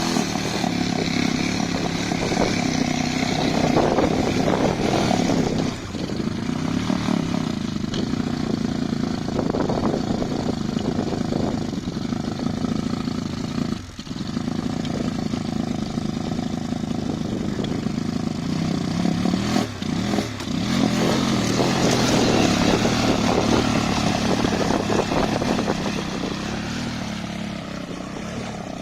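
Motorcycle engine running under load off-road, its note rising and falling, with the throttle briefly dropping off three times.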